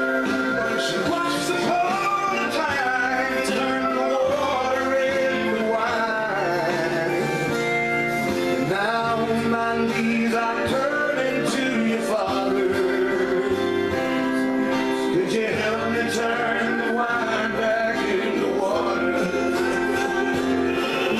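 Christian worship song playing: a man singing a slow melody over guitar and instrumental backing.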